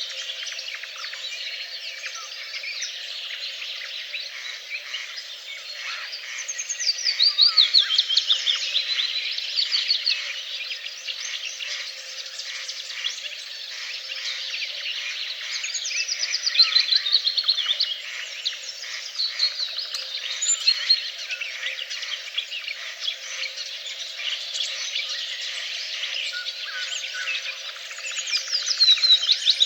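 A dense chorus of songbirds singing over one another. A louder song of quick notes falling in pitch stands out three times, roughly every ten seconds.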